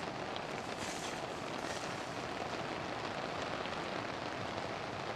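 Steady rushing hiss of a canister gas stove burning with a high flame, with rain falling on the tarp overhead.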